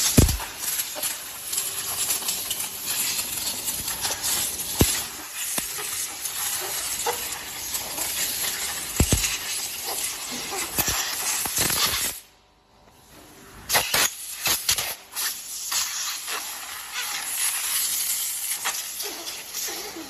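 Steady hissing factory noise around a silicone compression-moulding press, with a few dull knocks. The sound drops out briefly about twelve seconds in.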